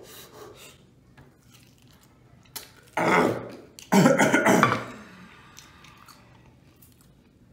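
Two loud, harsh coughs about a second apart, from a person whose mouth is burning from extremely spicy 2x spicy sauce chicken wings, with faint chewing and mouth sounds in the quieter stretches.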